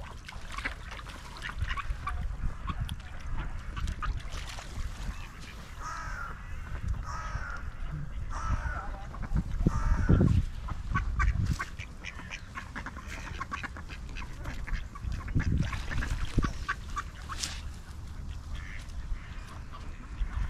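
Ducks quacking on and off, several calls in a row about a third of the way in, with many short sharp clicks and a low rumble underneath.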